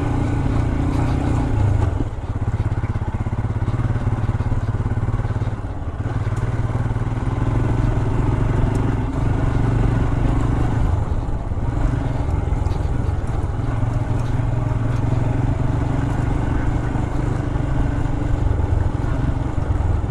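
Royal Enfield Himalayan's 411 cc single-cylinder engine running steadily while riding a trail, easing off briefly about two seconds and again about six seconds in.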